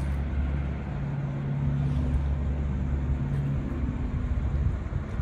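A motor vehicle's engine running, a steady low hum that shifts slightly in pitch about three and a half seconds in.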